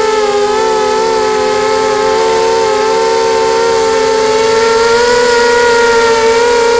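QAV250 FPV quadcopter's four 2204 2300Kv brushless motors spinning 5x3 propellers: a steady high whine made of several close tones, its pitch wavering with the throttle, dipping slightly about a second in and rising again after about four seconds.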